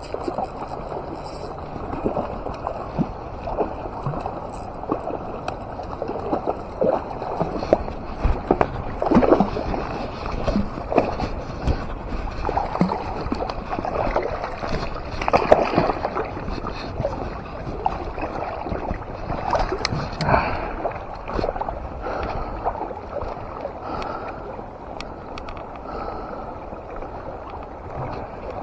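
River water splashing and gurgling in irregular surges.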